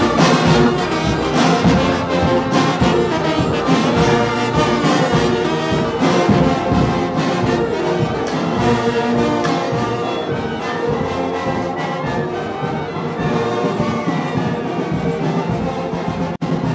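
Marching brass band playing, with sousaphones and trombones, at full loudness; the sound drops out for a split second just before the end.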